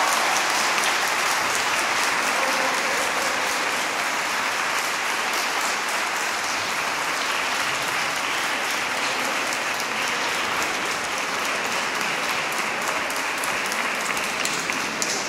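An audience applauding at length: dense, steady clapping that eases slightly toward the end.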